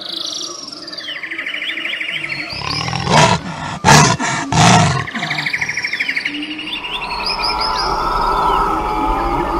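Added jungle soundscape: birds chirping and trilling, broken by three loud big-cat roars about three to five seconds in.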